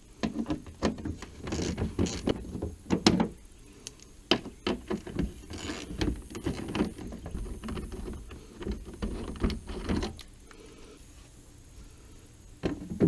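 Hand ratchet with an 8 mm socket clicking in irregular bursts while factory bolts are backed out, mixed with clinks of metal tools being handled. It goes quieter for the last few seconds.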